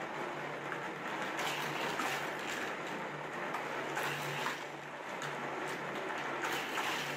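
Hot Wheels Spin Storm track set running, its battery-powered motorized booster humming steadily while die-cast toy cars rattle and clatter around the plastic track, with a few sharp clicks.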